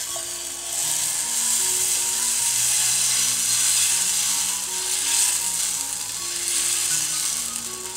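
Dosa batter sizzling on a hot pan as it is poured and spread with a ladle. The sizzle starts suddenly as the batter meets the pan and goes on as a dense hiss.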